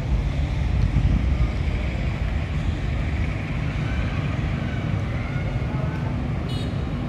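Wind buffeting the microphone: a loud, uneven low rumble with a hiss above it.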